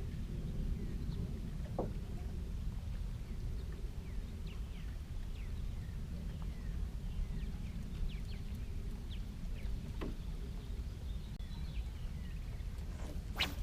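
Lakeside outdoor ambience: a steady low rumble with many faint, short, falling bird chirps scattered throughout. There are a couple of soft clicks, and a sharper click near the end.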